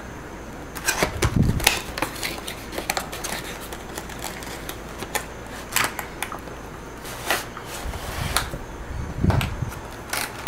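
Clear plastic blister pack and cardboard model-train box being handled as the blister tray is slid out of the box: irregular clicks, crackles and rustles, in small clusters.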